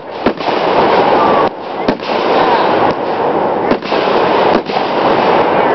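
Fireworks going off in a dense barrage: sharp bangs about every second or two over a continuous din of overlapping bursts.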